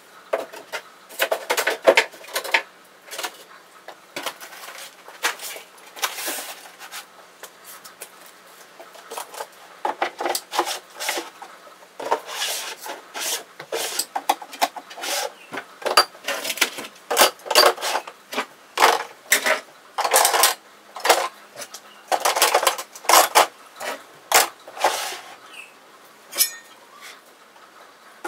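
Metal drywall hand tools clattering, knocking and scraping as they are put into a 3/4-inch poplar plywood toolbox and its plastic pull-out tubs, in many short, irregular knocks with a few quieter stretches.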